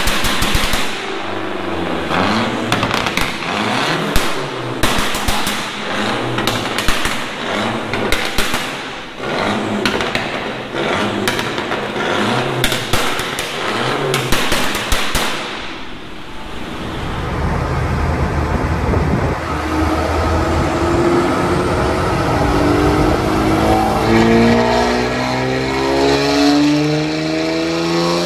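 A turbocharged Lancia Delta on the dyno, its engine revved in short blips while the anti-lag system fires a rapid string of bangs and crackles. About sixteen seconds in this gives way to a 550 hp Audi RS4 starting a dyno pull, its engine note climbing steadily as the revs rise.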